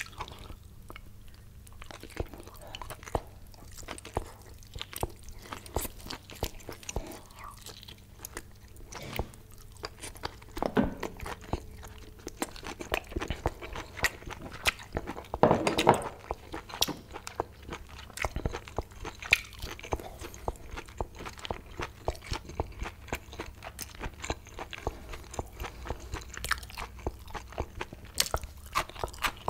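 Close-miked chewing of boiled octopus: a steady run of wet crunches and mouth clicks, loudest about halfway through.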